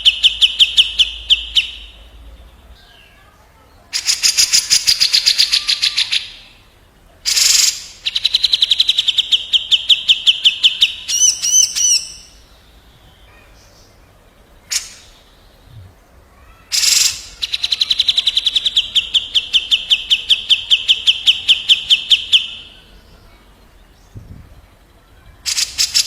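Cucak jenggot (grey-cheeked bulbul) calling against another bulbul: long, fast rolling trills of rapidly repeated notes, each lasting a few seconds, alternating with short sharp single calls.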